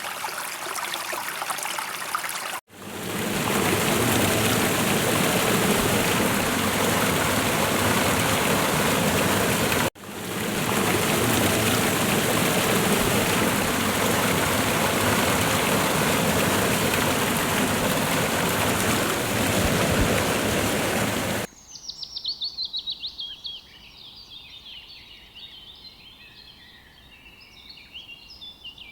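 Flowing stream, then after a cut a louder, fuller rush of water like a waterfall, continuing through a second cut. About two-thirds of the way in the water stops and a bird sings: rapid chirping runs of notes that step down in pitch, repeated.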